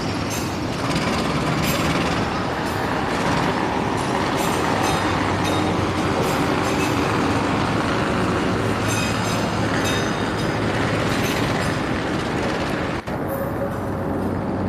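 Train passing at close range, its wheels clacking over the rail joints in a repeated rhythm.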